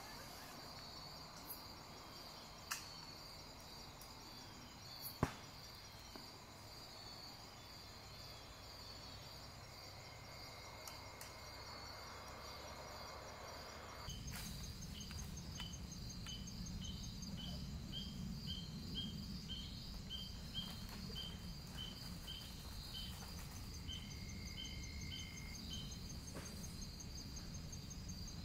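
Crickets and other night insects trilling steadily, with a few sharp clicks in the first seconds. About halfway through a low rumble comes in and another insect chirps in a regular series, about two chirps a second.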